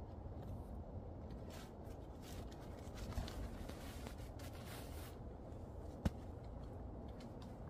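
Nylon tent fabric and stuff sacks rustling in short swishes as they are handled and pulled apart, with a single sharp click about six seconds in.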